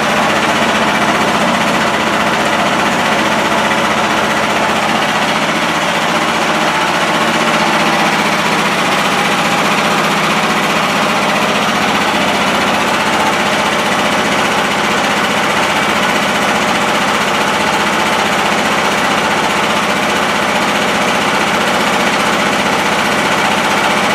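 Portable generator's engine running steadily at constant speed.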